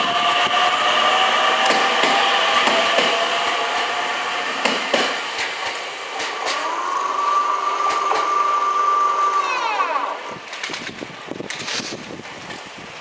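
Keio Inokashira Line 1000-series train running through a level crossing, wheels on the rails with steady high-pitched squealing. A second steady whine comes in partway through, then falls away in pitch about ten seconds in, and the sound dies down.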